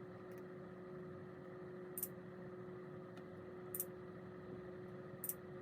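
Faint steady hum with one constant tone, broken by four soft clicks about every one and a half to two seconds.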